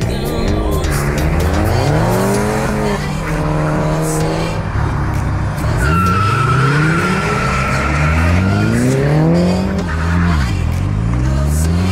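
Cars launching from a standing start and accelerating hard, engine pitch climbing and dropping back again and again through gear changes. A high, steady squeal runs for a few seconds starting about six seconds in.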